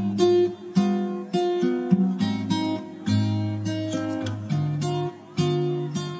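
Background music: an acoustic guitar strumming chords, about two strikes a second.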